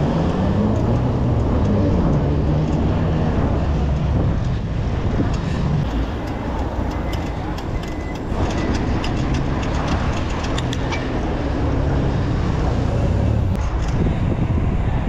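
Road traffic heard from a moving bicycle: a motor vehicle engine running close by over a steady rumble of road and wind noise on the microphone, with a run of light clicks about halfway through.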